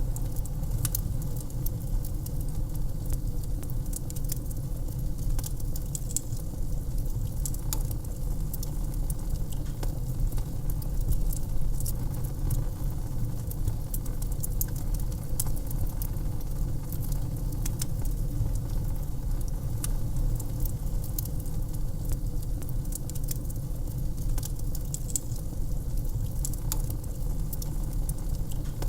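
Wood fire crackling in a fireplace: a steady low rumble with frequent small, irregular pops and snaps.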